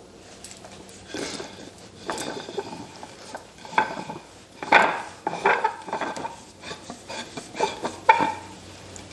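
Large wooden screw and wooden nut being handled and turned: irregular knocks, clatters and scraping of wood on wood, with the loudest knocks about four and a half and eight seconds in.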